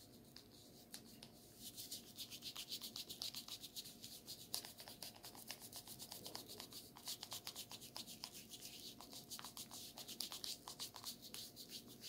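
Bristles of a facial cleansing brush, its motor dead and worked by hand, scrubbing hard over wet, soapy skin: a faint, fast scratchy rubbing of several strokes a second that starts about a second and a half in.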